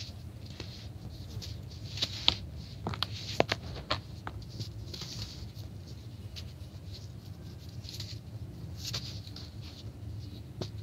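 Dry, crispy grey blocks crushed and crumbled by hand into powder, with soft, gritty crumbling throughout. About two to four seconds in comes a cluster of sharp crackles as pieces snap.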